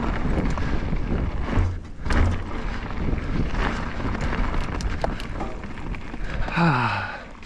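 Wind rushing over the microphone and knobby tyres rolling over a dirt trail as a mountain bike is ridden, with scattered rattles and clicks. Near the end, a short falling vocal sound.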